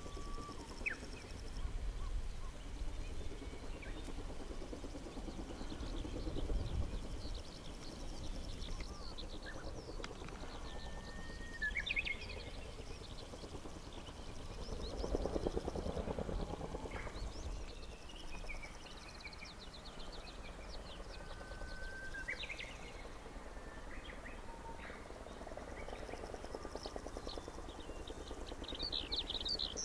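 Faint, distant beat of a Kaman K-MAX helicopter's intermeshing rotors on landing approach, a low rumble that swells briefly about halfway through. Birds chirp over it with short rising calls.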